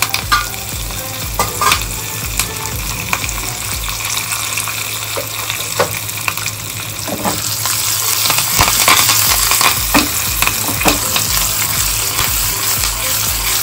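Fresh curry leaves sizzling in hot oil with garlic and cashews in a small saucepan, the tempering (tadka) for sambar rice, with scattered sharp pops. The sizzle grows louder about eight seconds in.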